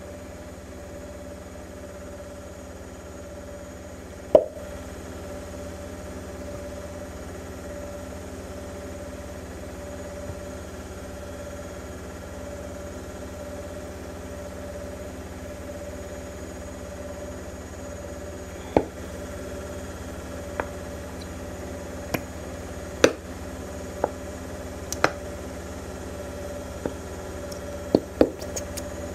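Homemade slime being kneaded and squeezed by hand, giving sharp clicks and pops: one loud pop about four seconds in, then a scatter of them through the last third. A steady low hum runs underneath.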